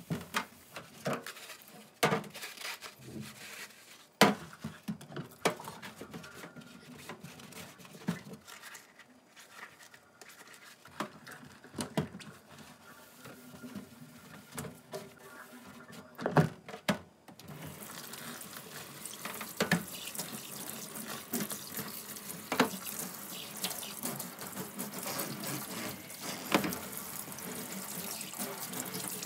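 Sponge scrubbing a stainless steel sink, with scattered knocks and taps against the metal. About two-thirds through, the tap comes on and water runs steadily into the sink as hands rinse under it, with a few more knocks.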